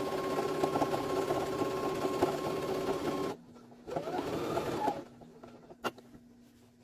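Electric sewing machine stitching steadily, stopping about three seconds in. It then runs again briefly for about a second, rising in pitch as it speeds up, and stops, with a sharp click near the end.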